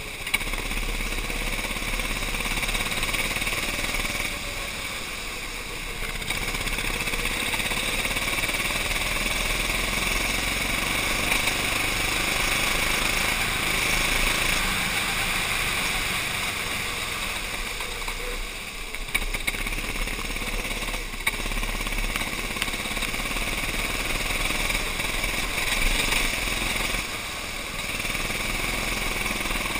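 Racing kart engine running hard, recorded by a camera mounted on the kart, easing off in level briefly three times.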